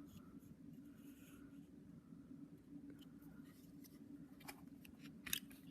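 Near silence: low room hum with a few faint clicks of a metal bike multi-tool being handled, the loudest near the end.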